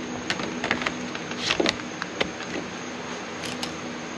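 A DJI Phantom drone being lifted out of its carrying case and set on a table: a handful of scattered clicks and knocks of plastic being handled, over a steady low hum.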